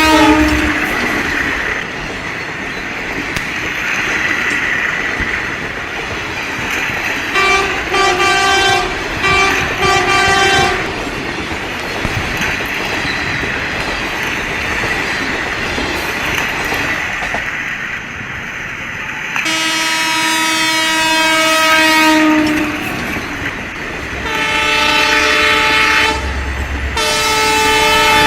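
Train horn sounding over the steady rumble of a running train: a horn cuts off just after the start, a run of short blasts comes about a third of the way in, then two longer blasts in the second half.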